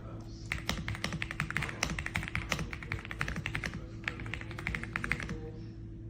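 Rapid typing on an RK Royal Kludge R75 gasket-mounted mechanical keyboard: a fast, dense run of keystroke clacks starting about half a second in and easing off near the end.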